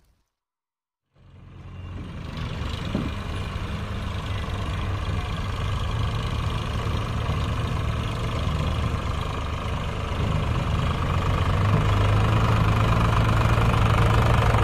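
Eicher 551 tractor's diesel engine idling steadily with a low hum, fading in after a second of silence and growing louder, a little louder again from about eleven seconds in.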